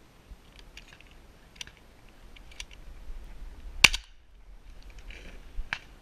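A shotgun fires once, a single loud report nearly four seconds in, with several fainter sharp cracks before and after it.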